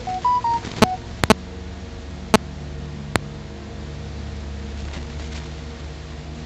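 A short electronic chime of four quick notes, low-high-high-low, just after the start, with several sharp clicks scattered over the first three seconds, over a steady low hum.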